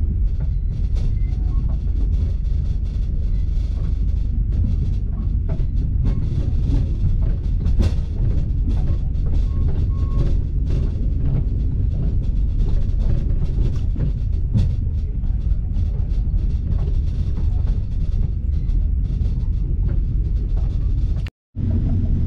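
Express train running on its rails, heard from inside the passenger car: a steady low rumble with scattered light clicks. It cuts out abruptly for a moment near the end.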